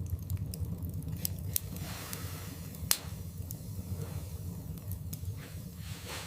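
Wood fire burning in a fireplace: irregular crackles and snaps over a low steady rumble of flames, with one loud pop about three seconds in.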